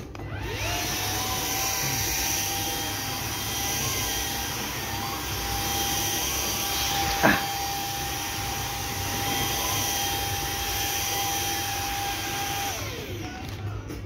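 Samsung cordless stick vacuum switched on. Its motor whines up to speed within the first second and runs steadily with a high whine and a rush of air, with a single sharp click about halfway. It is switched off about a second before the end, and the whine falls away as the motor spins down.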